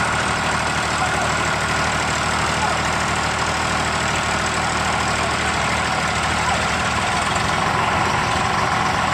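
Diesel tractor engines running steadily at an even speed, with no revving.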